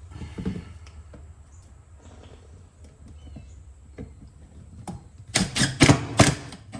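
A hammer tapping in a wire clip: a few faint knocks, then about five sharp, loud strikes in quick succession about five seconds in.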